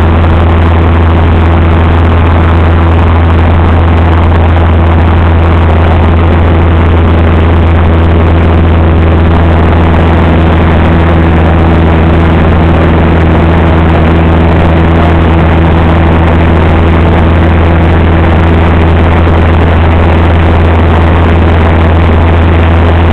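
A small aircraft's engine running steadily at cruise, heard loud from inside the cabin: a constant low hum with a rushing hiss over it that does not change.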